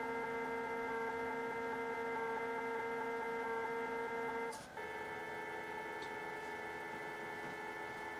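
Stepper motors of a homemade EggBot-style egg-painting robot, driven by an Arduino with a CNC Shield, running as a steady whine of several fixed pitches. About four and a half seconds in it breaks off briefly with a click, then resumes at a different set of pitches.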